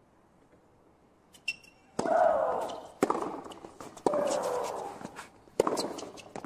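Tennis rally: sharp racket-on-ball strikes about once a second, four of them. The first and third strikes each come with a long, falling shriek from the woman hitting the ball.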